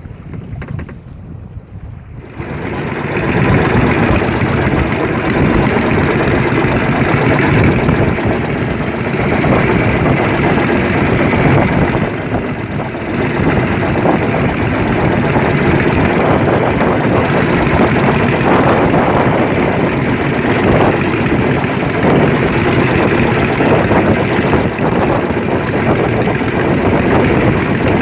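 A fishing boat's engine gets louder about two seconds in, over a second or two, and then runs steadily.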